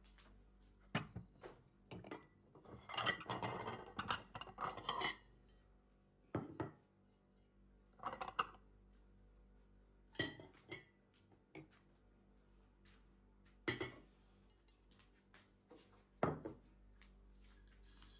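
White ceramic plates and bowls being set down and stacked on a wooden table, clinking against each other. There is a quick run of clinks about three seconds in, then single knocks every few seconds.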